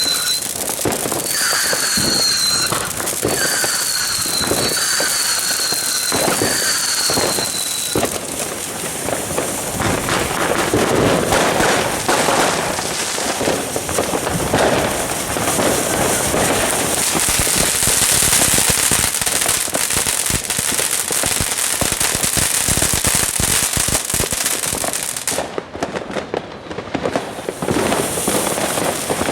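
Fireworks going off continuously with dense crackling and bangs. Over the first eight seconds there is a series of short falling whistles, about one a second.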